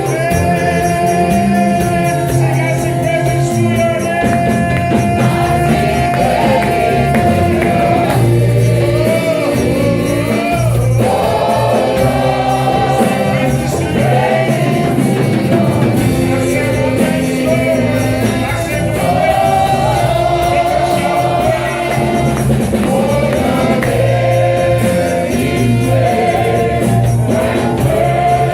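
Gospel worship music with a choir singing over a steady accompaniment.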